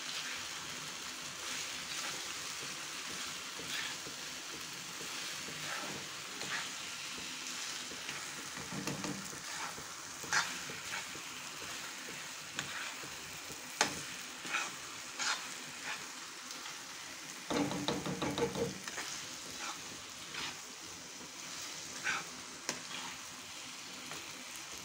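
Sabudana khichdi (tapioca pearls with tomato and onion) frying gently in a kadai over medium flame, with a steady low sizzle, while a metal spoon stirs it slowly. The spoon scrapes and clicks against the pan every second or so, with a longer bout of scraping about two-thirds of the way through.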